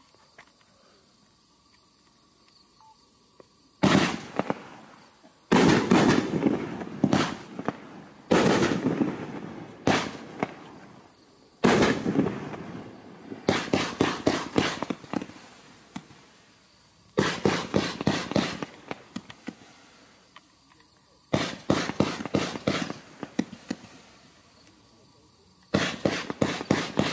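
A 500-gram consumer fireworks cake, 'The Reaper', firing about eight volleys, starting about four seconds in. Each volley is a cluster of rapid sharp pops lasting a second or two, with short pauses between volleys.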